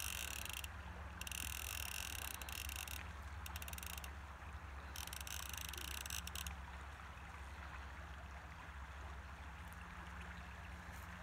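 Steady flow of a shallow river with a low rumble of wind on the microphone, and stretches of hiss that cut in and out during the first six seconds or so.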